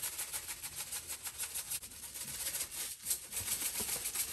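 Everything bagel seasoning shaken from a shaker jar onto a loaf of rye dough: a fast, even rattle of seeds, with a brief dip about three seconds in.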